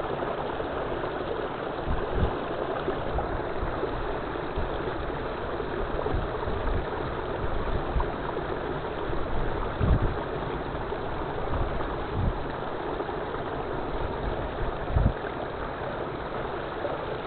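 Steady rush of water from a waterfall stream, with a few brief low thumps now and then.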